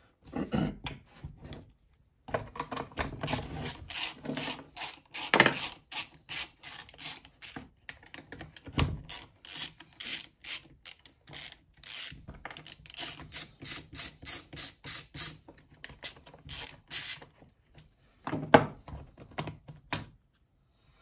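Socket ratchet clicking in quick runs of strokes, broken by short pauses, with a couple of louder knocks, as fasteners on a chainsaw are undone to get at its carburettor.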